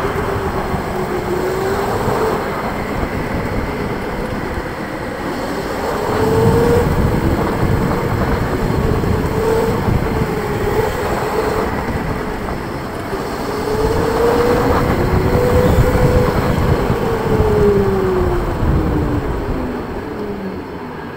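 Electric go-kart running at speed: its motor whine rises and falls in pitch as the kart speeds up and slows for the corners, over a heavy rumble of the kart on the concrete track. It gets quieter near the end.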